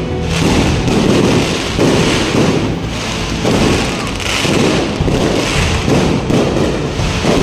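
Fireworks display: a steady barrage of aerial bursts and crackling, with a new surge about every second.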